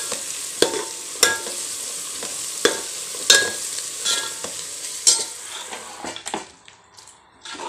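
Chopped onions sizzling in oil in a metal pot while a ladle stirs them, knocking and scraping against the pot about once a second. About six seconds in the sizzling stops and quieter, irregular wet mixing sounds of a hand working marinated chicken follow.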